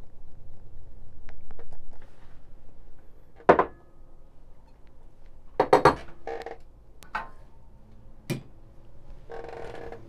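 Ground coffee shaken inside a dosing cup capped with a rubber lid, a soft steady rattle for about two seconds, followed by several sharp clacks and clinks as the cup and portafilter are set down and handled on a wooden counter.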